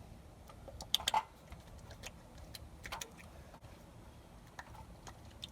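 Scattered small clicks and soft sticky handling noises as bare hands work Miracle Whip into the engine, with a louder cluster of clicks about a second in, over a faint low hum.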